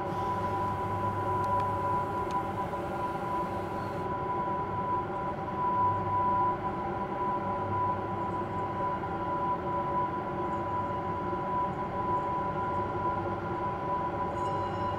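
A steady drone of several held tones, a bright high hum over lower ones, running on without a break.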